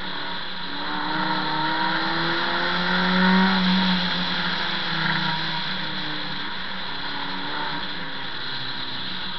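Onboard sound of a 1300cc-class time-attack car's engine working through a series of slow corners: the engine note climbs for the first few seconds, is loudest about three seconds in, then settles lower and steadier, over road and wind noise.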